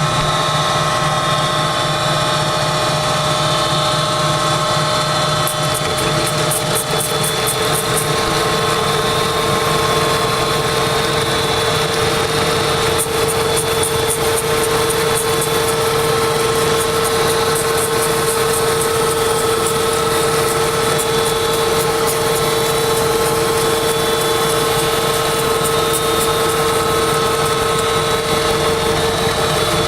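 Milling machine running in back gear at about 325 RPM, its cutter taking a steady cut across the angled end of a metal part. A loud, continuous machine sound with a held whine, running a little loud.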